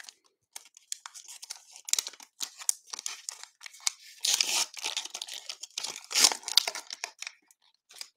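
Plastic trading-card pack wrapper crinkling and tearing as it is pulled open by hand after its top has been cut off, in irregular rustling bursts that are loudest about halfway through.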